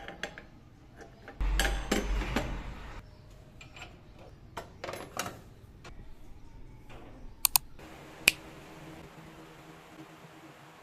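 Small clicks and knocks of kitchenware being handled, with a louder rustling, bumping stretch about a second and a half in. A few sharp clicks come near the middle, followed by a faint steady hiss.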